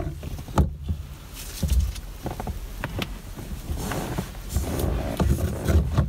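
Steering wheel being fitted onto its hub by gloved hands: scattered clicks and knocks of the parts meeting, with rustling handling noise.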